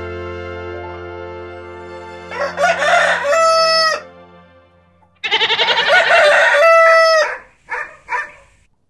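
A rooster crowing twice, each crow ending in a long held note, then two short clucking calls near the end. Before the first crow, a held note of background music fades out.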